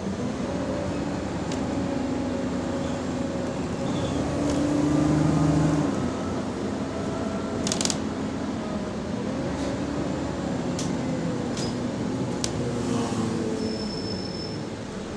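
Bus engine with an exhaust leak running under way, heard from inside the bus; its note swells and rises about four to six seconds in, then settles. A sharp click comes near the middle, and a brief high beep near the end.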